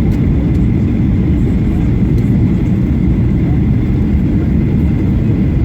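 Steady cabin noise inside a Boeing 737-800: a loud, even low rumble of engines and airflow with a faint steady whine above it.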